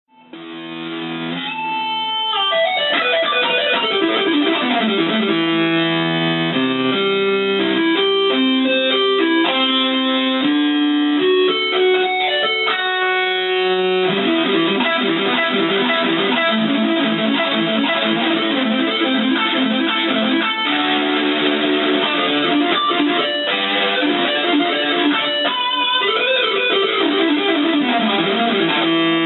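Electric guitar playing rock, moving from single-note lines into fuller sustained playing about halfway through. Near the end a note is bent up and back down.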